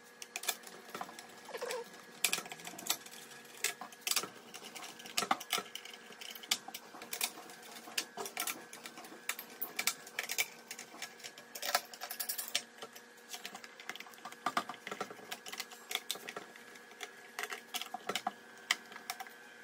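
Screwdriver backing out the cover screws of a Schneider Compact NSX 630 moulded-case circuit breaker: irregular light clicks and ticks of the bit, screws and plastic case, several a second.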